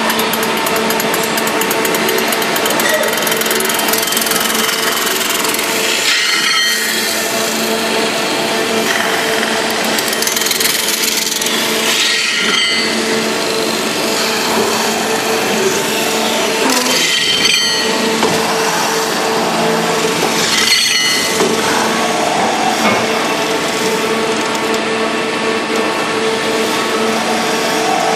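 Metal spinning lathe running, its forming roller working a copper blank over the spinning mandrel: steady machine noise with a constant hum and hiss, and a few brief surges.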